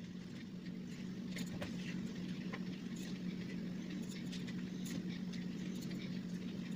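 Quiet room tone with a steady low hum, and faint irregular clicks and light rustles from a hand squeezing and moving a henna cone.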